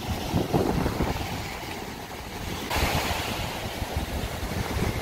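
Ocean surf washing on a sandy beach, with wind rumbling on the microphone. A little past halfway the hiss of the surf suddenly grows louder and brighter.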